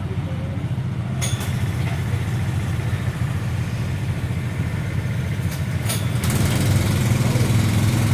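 Go-kart engines idling with a steady low rumble, growing louder about six seconds in. A couple of short sharp clicks, about one and six seconds in.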